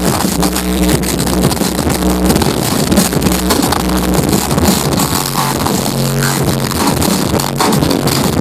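Loud electronic dance music with heavy bass played live over a concert hall sound system, recorded from the crowd.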